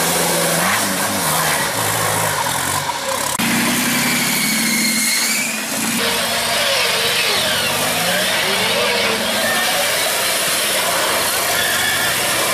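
Engines of off-road competition 4x4s running and revving as they crawl up steep dirt and rock, the pitch rising and falling. The sound changes abruptly about three seconds in and again near the middle as the footage cuts between vehicles.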